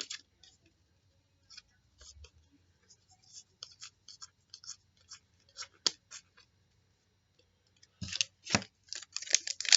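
Trading cards and packs being handled, with light scratchy rustles and clicks. Two sharp knocks about eight seconds in are followed by dense crinkling of a card pack's wrapper as it is opened near the end.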